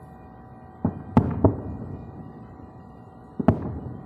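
Aerial fireworks shells bursting in the distance: sharp bangs with echoing tails, a cluster of three about a second in and two more near the end.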